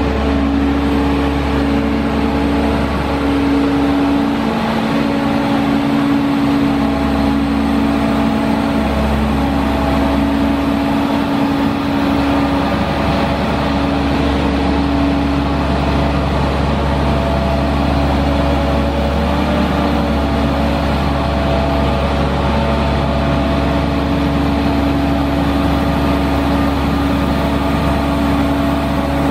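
Caterpillar C7 six-cylinder diesel engine of a Sandvik DX680 crawler drill rig running steadily, driving the rig's hydraulics as the upper structure and boom swing round.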